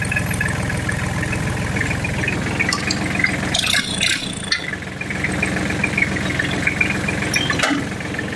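Farm tractor engine running steadily, with a brief rattle about four seconds in.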